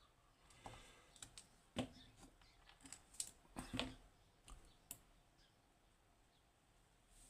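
Faint, irregular small clicks and taps from a lever lock and its picking tools being handled, about a dozen of them in the first five seconds, then near silence.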